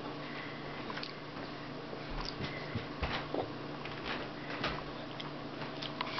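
A toddler eating finger food from a plastic plate: scattered soft clicks and taps of fingers and food on the plate and chewing, over a steady low hum.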